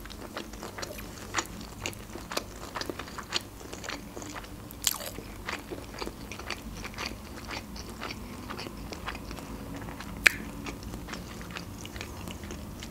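Close-miked chewing of a mouthful of sushi roll: a run of small wet mouth clicks and soft crunches, with one sharper click about ten seconds in.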